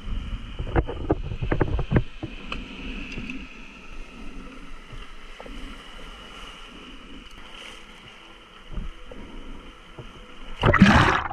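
Waves washing over shore rocks, with wind buffeting and knocks on the microphone in the first two seconds. Near the end a loud splash as the camera plunges into the sea.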